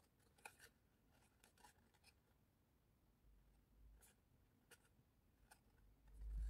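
Faint rustling and small crinkling clicks of printed card stock being handled, as fingers press a glued paper tab into place, with a low dull bump near the end.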